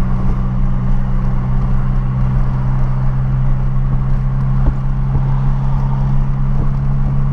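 Renault Clio 1.6 16V (K4M) four-cylinder engine running at a steady cruise with road rumble, heard from inside the cabin; the engine note holds one pitch, neither revving up nor dropping.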